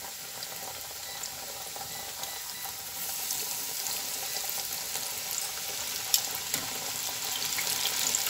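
Coated bofteek (thin beef steak) deep-frying in a small saucepan of hot oil: a steady crackling sizzle that grows louder about three seconds in. A single sharp click comes a little after six seconds.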